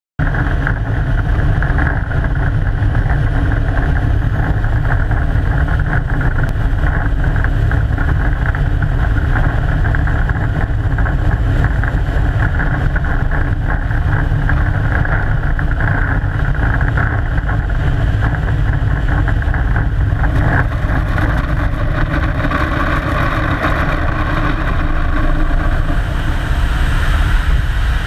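Loud, steady rush of airflow and four-turbofan engine noise from a BAe RJ85 air tanker in low flight, picked up by a camera mounted on the outside of the aircraft, with a deep rumble under it, during a water drop.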